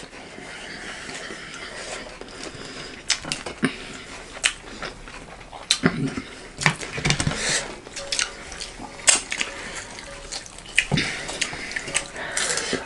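Eating sounds at a table: scattered sharp clicks and knocks of dishes and cutlery along with chewing, with a couple of duller thumps about six to seven seconds in.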